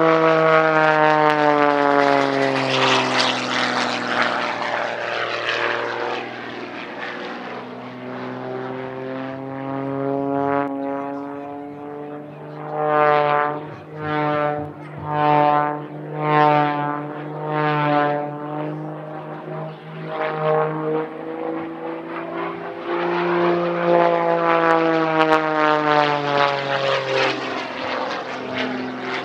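Propeller aircraft engine running under power as the plane flies past, its note dropping in pitch as it goes by. In the middle the sound swells and fades about five times, roughly once a second, and it then comes back in another pass, rising and falling in pitch again.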